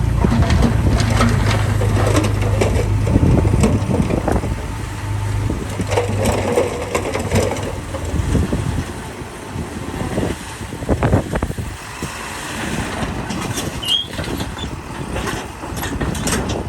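A heavy diesel earthmoving machine running, with dirt and rock crunching and tumbling as fill is moved. The engine's steady drone falls away after about five seconds, leaving irregular crunching and rattling.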